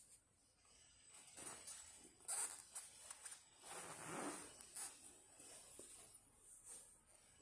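Faint, scattered rustling and brushing, a few soft swishes with the loudest about halfway through, over a faint steady high-pitched whine.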